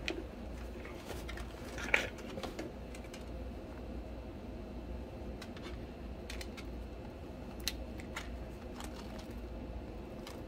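Handling noise: scattered small clicks and light rustles as hands lift a small canvas pouch out of its cardboard box and dust bag. The sharpest click comes about two seconds in. A faint low steady hum lies under it.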